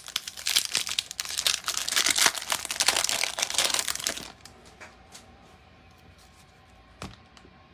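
A 2021 Panini Chronicles baseball pack wrapper crinkling as it is torn open and handled, a dense crackle for about four seconds that then stops. A single light click comes near the end.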